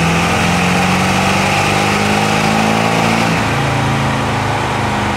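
Ford OBS pickup's diesel engine under full load on a chassis dynamometer, its pitch climbing slowly through a dyno pull. The pitch changes abruptly about three and a half seconds in.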